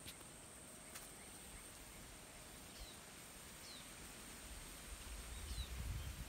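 Faint outdoor ambience: a steady high-pitched insect drone, with a few short falling bird chirps in the middle and a couple of faint clicks. A low rumble builds near the end.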